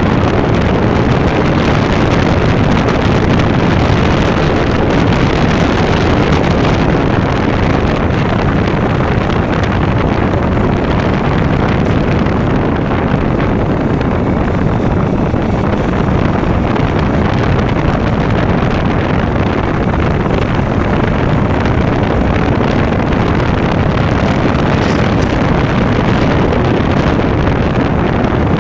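KTM Duke motorcycle engine and exhaust running steadily under way, with wind rushing over the microphone.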